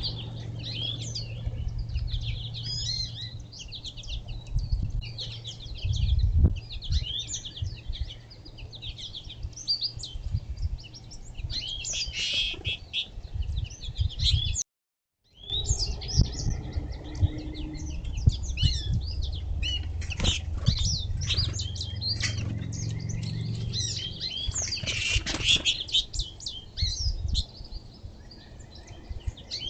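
Many small songbirds at a feeder chirping and twittering, their quick high calls overlapping, over a steady low hum. The sound cuts out completely for a moment about halfway through.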